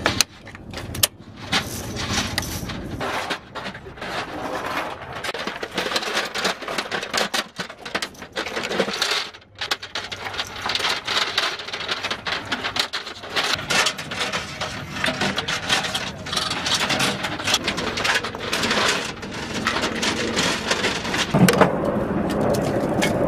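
Irregular metallic clinking and rattling of linked machine-gun ammunition belts and gun parts being handled, over a steady background hum, with one sharp knock near the end.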